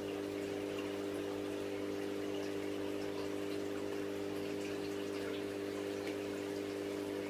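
Aquarium filter pump running with a steady hum, over the constant rush of moving water with faint drips and splashes.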